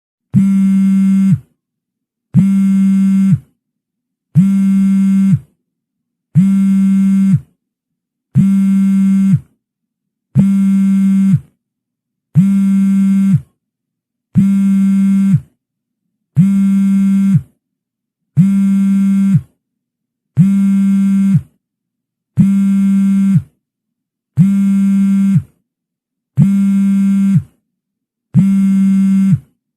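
Mobile phone vibrate alert: a low buzzing hum of a little over a second, repeated every two seconds with short silences between.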